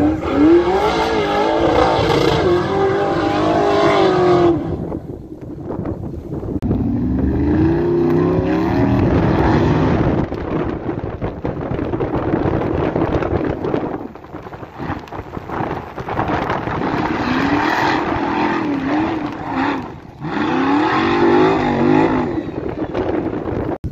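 Off-road trials 4x4's engine revving hard in repeated bursts as it climbs a steep, loose dirt bank. The pitch rises and falls with each burst, about four times, with lower running in between.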